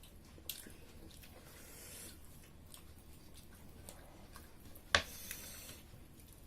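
People eating pork curry and rice: chewing and small wet clicks of eating, with one sharp click about five seconds in.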